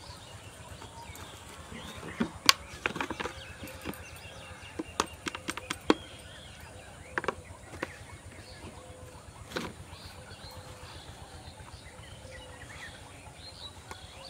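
Scattered sharp clicks and taps, thickest from about two to six seconds in, with a last one near ten seconds, over faint bird calls.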